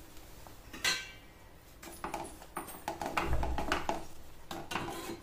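Wooden spatula knocking and scraping against a steel pan while stirring thick semolina kesari, a series of short clinks and knocks. One ringing metallic clink comes about a second in.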